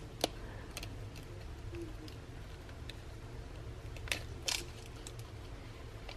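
Scattered small clicks and scrapes of a pry tool working a smartphone's screen loose from its frame, the clearest near the start and a pair about four seconds in, over a steady low hum.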